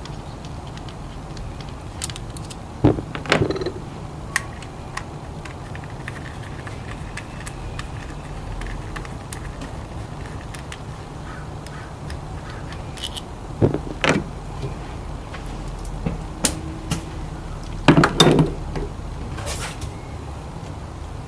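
Metal clattering and clanking in a few short bursts, loudest near the end, over a steady low hum, like tools or parts being handled while working on a car.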